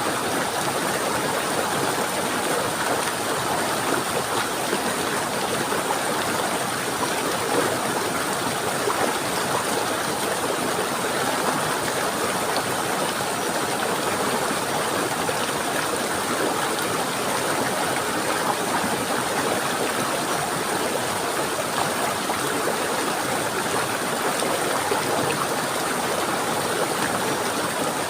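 A stream running steadily, water flowing without a break.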